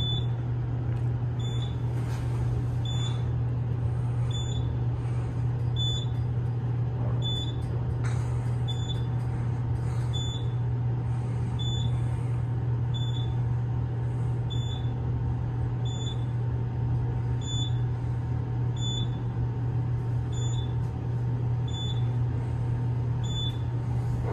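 Elevator car riding upward, with a steady low hum from the car in motion. A short high-pitched beep repeats about once a second.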